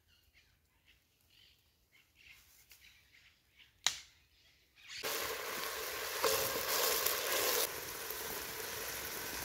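Quiet at first, with faint ticks and one sharp click about four seconds in; from about five seconds in, chopped food frying in oil in a cast-iron pot over a wood fire, a loud, steady sizzle.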